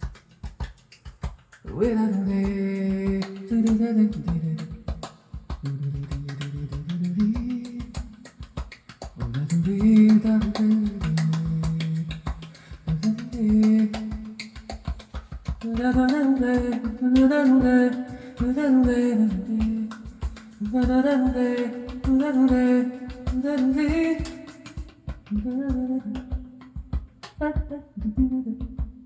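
A song with a sung melody over a steady beat, played back from a cassette on an Akai GX-73 cassette deck.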